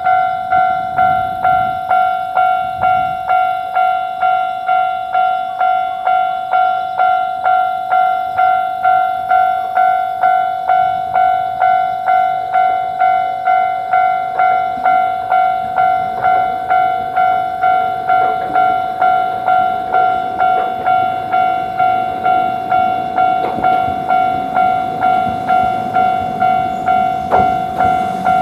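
Japanese railroad crossing warning bell ringing in an even rhythm, a little under two strikes a second. In the second half a train runs past under it.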